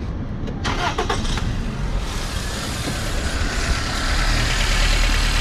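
A 1996 Toyota Corolla's 1.8 L four-cylinder engine is cranked and starts about a second in, then runs steadily and gets louder near the end. It still has a cylinder 1 misfire caused by a bad spark plug wire.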